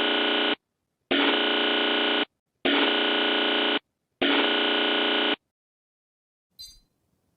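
Electronic alert buzzer of a mock Emergency Alert System broadcast: four harsh, steady buzzes, each a little over a second long with short gaps between. A brief faint click follows near the end.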